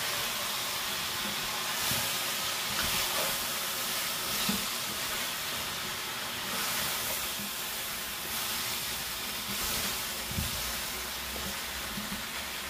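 Vegetables sizzling as they are sautéed in an enamelled cast-iron casserole and stirred with a spatula, a steady frying hiss with a few knocks of the spatula against the pot.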